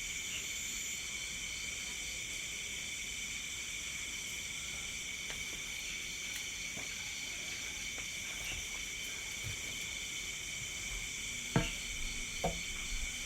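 Night chorus of crickets and other insects, a steady high-pitched trilling in several layers, one of them pulsing quickly. Near the end come a couple of sharp knocks.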